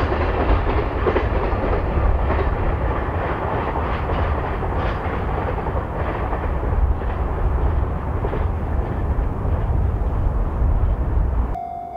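DD51-hauled freight train rolling past: a steady, heavy rumble with the wagons' wheels clicking over the rail joints. It cuts off abruptly near the end.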